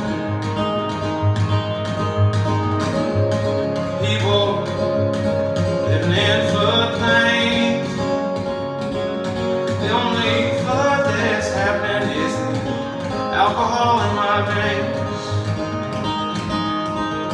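Acoustic guitar strummed in a steady rhythm, an instrumental break in a folk song, with fresh chords struck about every three to four seconds.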